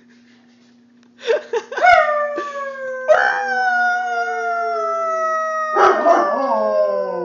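Bernese mountain dog howling: after about a second of quiet, a few short yips lead into a long howl that slowly falls in pitch, taken up again twice with a fresh breath.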